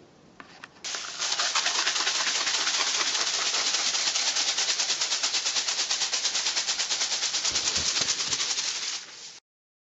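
Homemade rain sticks made from decorated cardboard tubes, rattling with a dense, continuous patter of grains pouring through them. The patter starts about a second in and cuts off suddenly near the end.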